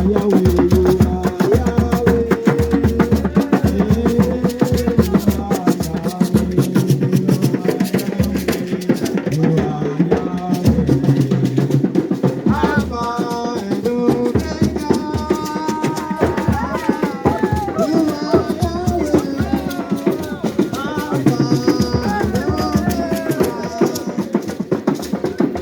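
Gospel praise music with a steady drum beat and rattling shakers; singing voices come in about halfway through.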